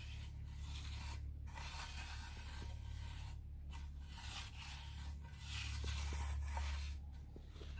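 Steel plastering trowel scraping and smoothing wet cement mortar along a floor edge, in about four long strokes with short pauses between them, over a steady low hum.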